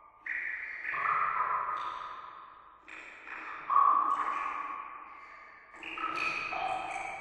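Water drops falling into water, a run of clear plinks at uneven intervals, each with a long echoing fade.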